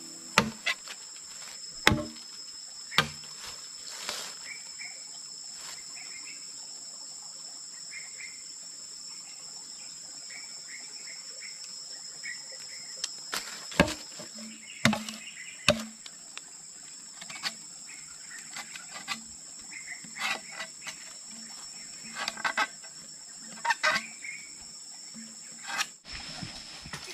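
Insects droning steadily at a high pitch, with short chirps here and there. Scattered sharp knocks and clicks come at irregular moments, louder than the drone.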